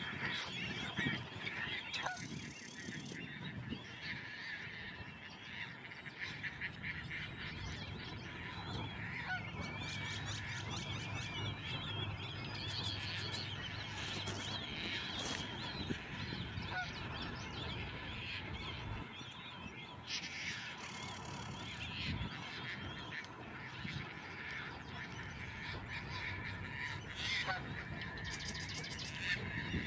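A flock of waterbirds calling continuously, many short honking calls overlapping in a dense chorus.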